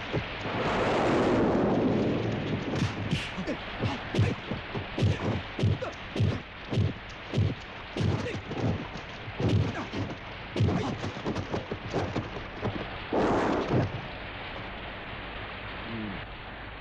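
Dubbed kung fu film fight sound effects: a rapid run of punch and block impacts, about two a second, with a swishing whoosh near the start and another about thirteen seconds in, over a steady hiss.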